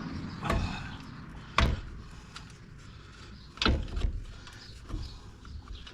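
Several sharp metal clunks and knocks from brake parts and hand tools being handled while the brake caliper is refitted. The loudest come about a second and a half in and again nearly four seconds in.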